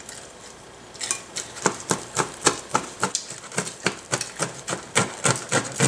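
Knife sawing through the crisp crust of a thick Sicilian pizza: a rapid, irregular run of crunchy crackles starting about a second in.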